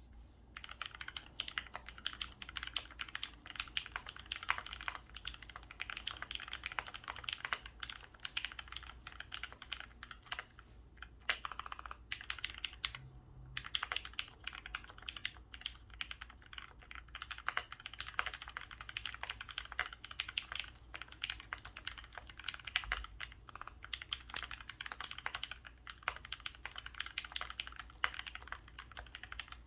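Typing on an Alpine 65 custom mechanical keyboard with Tangerine linear switches on a brass plate damped with PCB foam: a steady, irregular run of key clacks, with a brief pause about 13 seconds in. The spacebar is left out.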